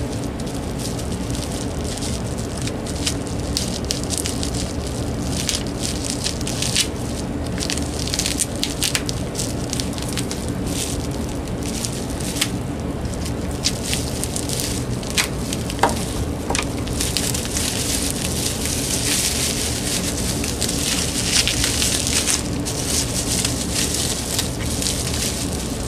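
Plastic bubble wrap crinkling and crackling as it is cut open with scissors and pulled off a cordless phone handset, with scattered sharp snips and pops. The crackling gets denser about two-thirds of the way through as the wrap is peeled away.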